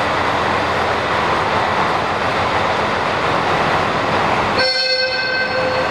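JR Hokkaido 711 series AC electric multiple unit rolling through a station, a steady roar of wheel and running noise. Near the end the rumble drops away abruptly and a steady high tone holds for about a second.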